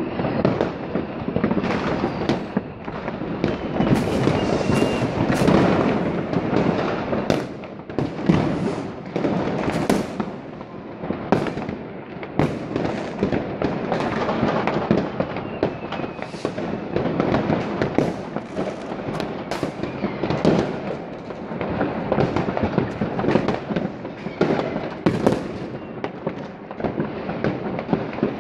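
Fireworks and firecrackers going off all over the city: a constant din of crackling and distant booms, with sharp nearby bangs every second or so and a faint whistle now and then.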